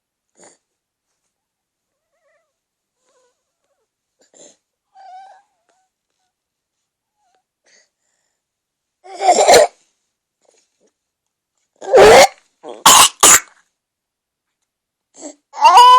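Loud coughing in separate fits with quiet between them: one cough about nine seconds in, a quick run of three around twelve to thirteen seconds, and another near the end that ends on a rising voiced note.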